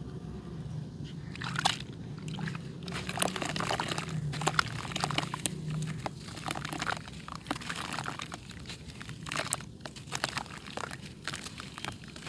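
Pure red dirt clay crumbling and being crushed: a dense run of small crunchy crackles that thickens about a second and a half in and comes in waves with short lulls.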